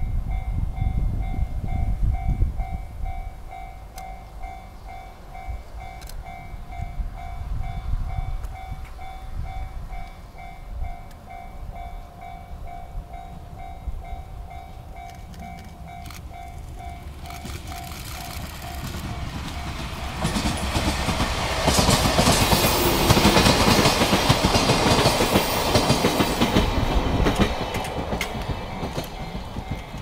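Level-crossing warning bell ringing in steady rapid pulses. A JNR Class DE10 diesel-hydraulic locomotive and its old-type passenger coaches then pass: engine and wheel-on-rail clatter build up, are loudest a little past halfway and cover the bell, then ease off near the end.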